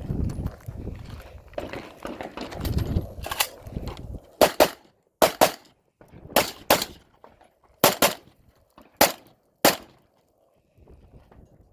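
About a dozen gunshots on a shooting range, mostly fired in quick pairs a fraction of a second apart, starting about three seconds in and stopping shortly before the end. Before the shots there is a low rumbling noise.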